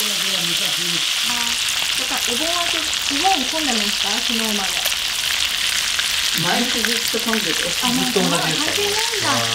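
Olive oil sizzling and spattering steadily in a cast-iron skillet of eel ajillo over a charcoal fire, with small crackling pops.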